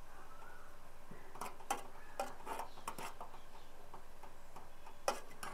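Dried brahmi decoction boiling in a small uruli: irregular small pops and ticks of bubbles bursting, the loudest near the end.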